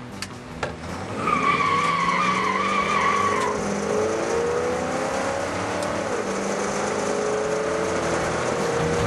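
Heard from inside the cabin, a 1968 Shelby GT500's 428 V8 is accelerating. For about two seconds, starting a second in, the tyres give a wavering high squeal. Then the engine climbs in pitch, drops at an automatic upshift about six seconds in, and climbs again.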